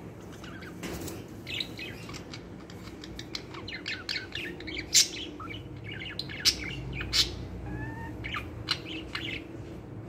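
Pet budgerigars chattering: a busy run of short chirps and warbles, with a few sharp, loud chirps in the middle and a couple of short rising whistles near the end.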